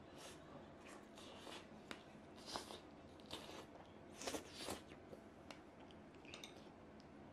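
Faint eating sounds: soft clicks and squishy scrapes of a fork working into roasted eggplant on a plate. The louder bursts come about two and a half and four and a half seconds in.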